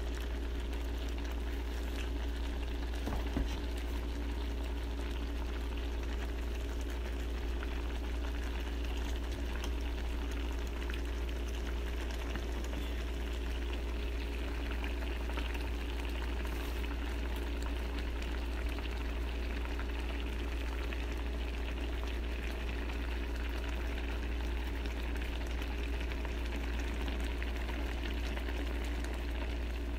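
Seafood noodle soup bubbling steadily in the pan at a simmer, over a constant low hum. A single light click comes about three seconds in.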